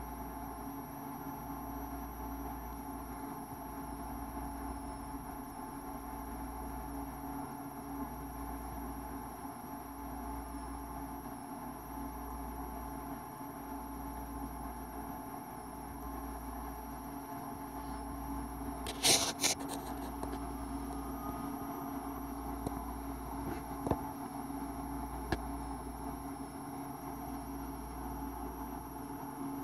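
Steady hum and whine, with a low throb that pulses roughly every two seconds. A brief cluster of sharp clicks about two-thirds of the way in, followed by a couple of single faint clicks.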